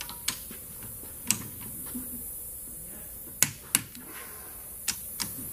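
Click-type torque wrench clicking as it releases on head-stud nuts set to 65 foot-pounds, each click the sign that a nut has reached that torque. About six sharp clicks, several in close pairs, the loudest pair about three and a half seconds in.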